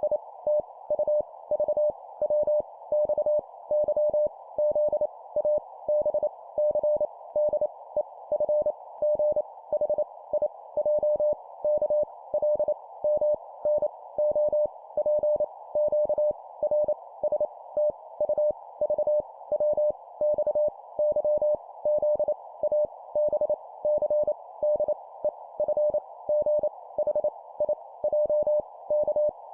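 Morse code (CW) tone keyed at 25 words per minute, sending letters as a fast stream of short and long beeps at one steady pitch. A steady band of hiss sits around the tone and stays audible in the gaps.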